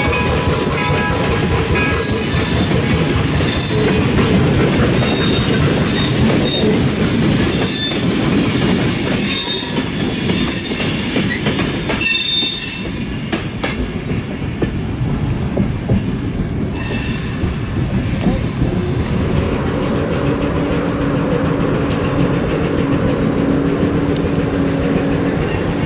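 Wooden passenger coaches behind a 4-4-0 steam locomotive rolling past, with a rumble, a high-pitched wheel squeal and clatter on the rails that die down about halfway through. A steady low tone comes in during the last several seconds.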